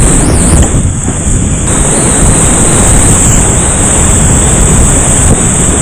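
Loud, steady rush of creek whitewater running well above its normal level, a continuous churning roar with no breaks.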